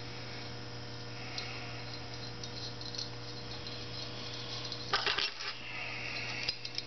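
Small metallic clicks and clinks as a brass jet is threaded by hand into an aluminium BMW R75/5 carburettor body, with a cluster of clinks about five seconds in. A steady electrical hum runs underneath.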